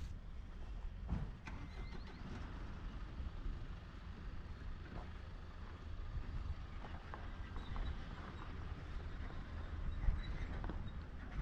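Footsteps of a walker on a forest trail, an uneven run of soft steps, over a steady low wind rumble on the microphone.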